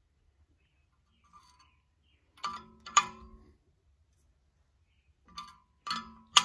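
Sharp metal-on-metal clinks, each ringing briefly: two close together about two and a half seconds in, then three more near the end. Steel striking the steel of a homemade cylinder-liner puller as its nut is worked down on the threaded rod to draw a liner from a Case 188D diesel block.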